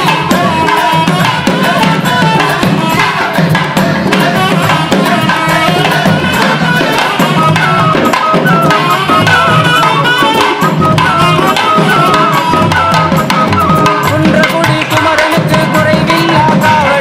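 Music with fast, dense hand-drum strokes under a wavering melody line, steady and loud throughout.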